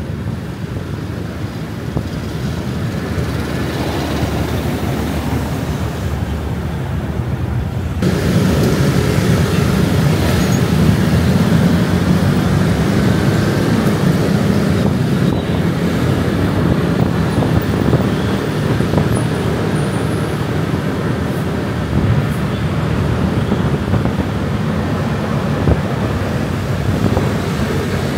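Road traffic heard from a moving motorbike: engine and road noise of the bike and the vehicles around it, a steady rumble that gets louder about eight seconds in.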